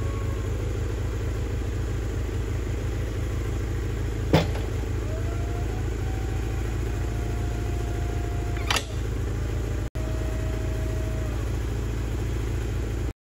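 Wood-Mizer LT40HD portable sawmill's engine running steadily while the log is flipped on the mill bed. There is a sharp clank about four seconds in and another near nine seconds, and a higher whine comes and goes in between.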